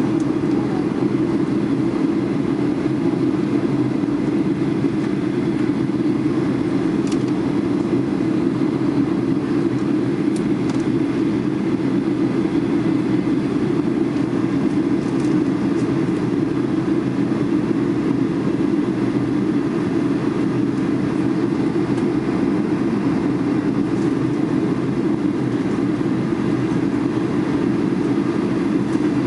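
Steady drone of an airliner cabin in flight: jet engine and airflow noise heard from inside the passenger cabin, loud and unchanging.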